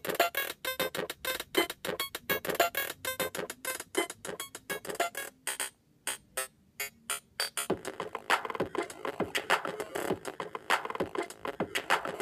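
Electronic dance music with fast staccato synthesizer chords; about six seconds in it thins to a brief break of sparse hits, then comes back fuller.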